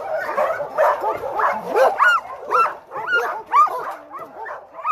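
Several dogs barking and yelping in greeting: a dense overlapping burst at first, then a run of high, rising-and-falling yelps about two a second.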